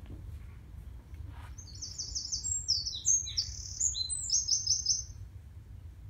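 A small songbird singing one high-pitched phrase of about three and a half seconds, starting near two seconds in: quick runs of repeated notes, a stretch of varied notes, then another fast run of repeated notes. A faint low rumble sits underneath.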